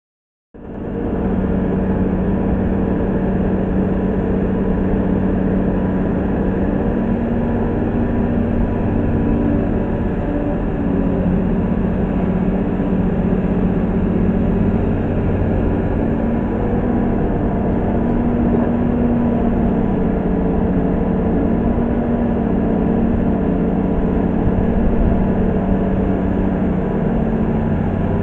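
Diesel engine of a Komatsu PC200-6 hydraulic excavator running steadily while the machine digs and swings, its pitch shifting slightly with the load.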